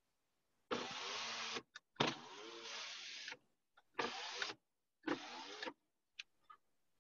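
Deep breaths taken close to a microphone: four rushes of breath, in and out twice, the exhales carrying a slight voiced sigh, each starting and stopping sharply. A couple of faint clicks follow near the end.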